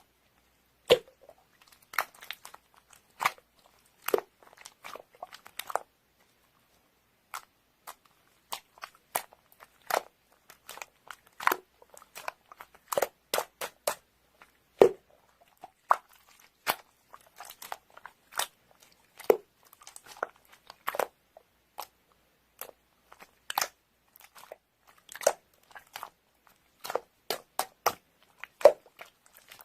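Close-up crunching and chewing of crisp food: irregular sharp crunches, a few a second, with a short pause about six seconds in.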